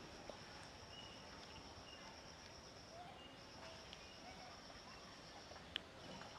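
Faint outdoor ambience: a steady, high-pitched insect drone that breaks off briefly about halfway through. A few faint short bird chirps are heard over it, and one sharp click comes near the end.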